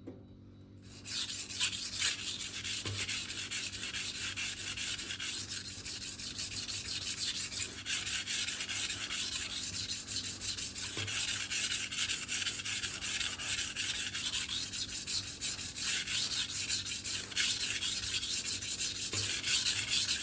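Stainless-steel chef knife edge scraping back and forth on the coarse 400-grit side of a vitrified diamond whetstone in steady continuous strokes, starting about a second in and stopping at the end. This is the grinding stage that raises a burr along the edge.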